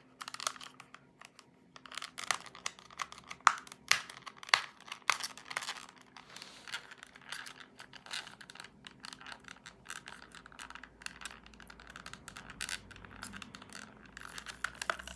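Taped toy packaging being picked at and torn open by hand: irregular clicks, rips and crinkling rustles throughout.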